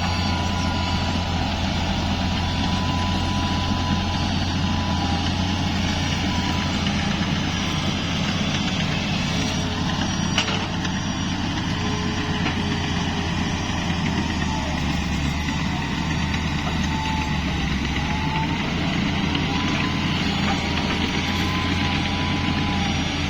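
Heavy earthmoving machine's diesel engine running steadily, with a thin wavering whine above it. The engine note drops lower for a few seconds past the middle. One sharp click comes about ten seconds in.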